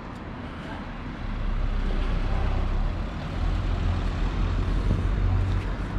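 A car driving past close by, its engine and tyre rumble growing louder about a second in and holding.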